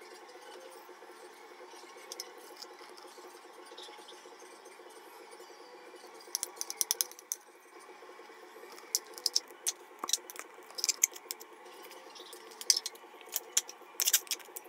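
Hands handling a dry, hard papier-mâché shell: scattered clusters of sharp clicks and crackles, starting about six seconds in, over a steady low hum.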